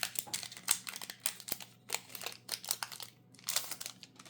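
Foil wrapper of a Pokémon card booster pack crinkling as it is torn open and handled, in a quick run of short crackles that thin out near the end.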